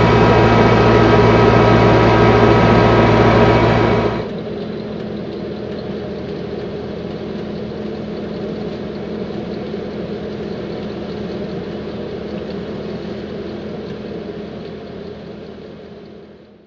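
Vredo VT5518-3 self-propelled slurry applicator's Deutz V8 diesel running steadily while it fills from a feeder tanker through its filling arm. Loud and close at first, it drops to a quieter, more distant hum about four seconds in and fades out near the end.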